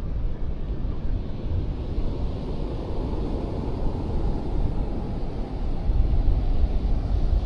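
Wind buffeting the microphone, a steady low rumbling rush with no distinct events.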